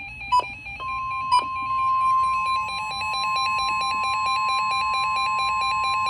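NOAA Weather Radio warning alarm tone, a steady high tone of about 1050 Hz, begins about a second in and holds, announcing that a warning message is about to follow. Under it an electronic alert tone alternates rapidly between pitches, and two short beeps sound just before the long tone settles in.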